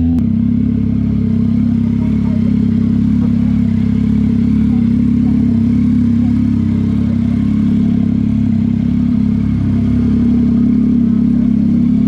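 A vehicle engine running loud and steady at one constant engine speed, after a small step up in pitch at the very start; it cuts off at the end.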